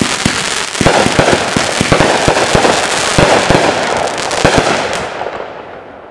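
Big Fireworks 'Flash Bang' 500-gram cake firing: a rapid string of sharp shots and bursts over a dense crackle. It dies away over the last second or so.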